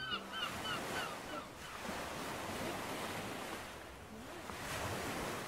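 Surf washing onto a beach, a steady rush of waves that swells and eases. The tail of a series of short high calls fades out in the first second or so.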